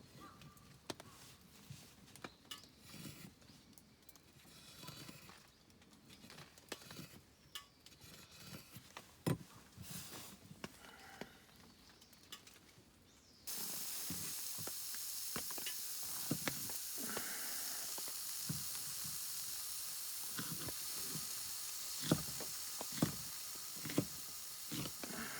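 Faint clicks and knocks of camp cookware, then about halfway through a steady sizzle starts suddenly as food goes into a hot pan. Sharp taps of a utensil against the pan sound over the sizzling.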